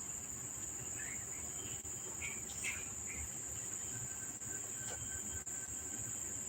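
Crickets trilling steadily at a high pitch, with a few faint short chirps about one to three seconds in.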